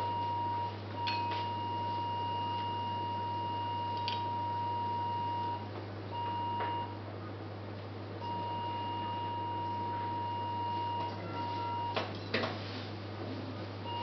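Electrosurgical (cautery) unit's activation tone: a steady high beep held for several seconds at a time, stopping and starting again as the instrument is keyed. A steady low hum runs beneath, with a few short clicks, most of them near the end.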